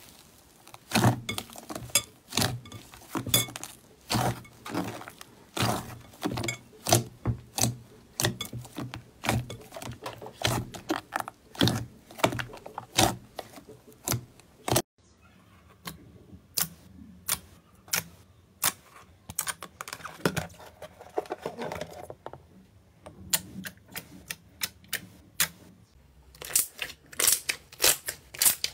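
Hands squeezing and kneading slime, making a run of sticky clicks and little pops as air pockets burst. The clicks are dense and loud in the first half, sparser and softer after a cut about halfway, and come thick again near the end as a glossy dark green slime is pressed.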